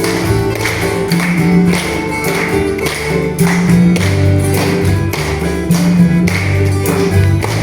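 Instrumental church band music with a steady beat: a bass line and sustained keyboard chords under regular drum strikes.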